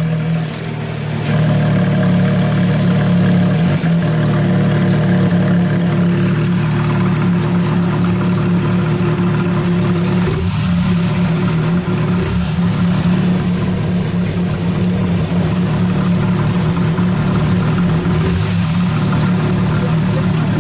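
Porsche 997 GT3 RS Mk2's naturally aspirated flat-six idling through a Cargraphic aftermarket exhaust, freshly started. It dips briefly, then settles about a second in to a steady, even idle.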